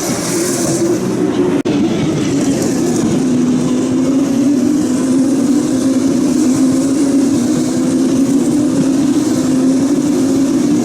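Formula 2 race cars' 3.4-litre turbocharged V6 engines running with a steady, nearly unchanging pitch, broken by a momentary gap about a second and a half in.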